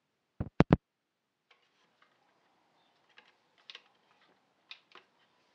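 Three sharp wooden knocks in quick succession about half a second in, then a few faint light taps and clicks, as a small hardboard panel is handled and fitted against the wooden speaker box.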